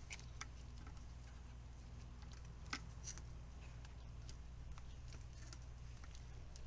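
Faint, scattered small clicks and crinkles of PTFE (Teflon) thread-seal tape being wrapped by hand around a shower arm's threads. The clicks come irregularly, a little louder about two and a half seconds in, over a low steady hum.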